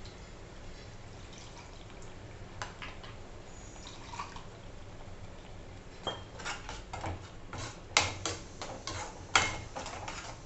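Tomato masala cooking in a steel kadhai with a faint hiss and a few soft pops. About six seconds in, a steel spatula starts stirring it, scraping and clanking against the pan, with two louder knocks near the end.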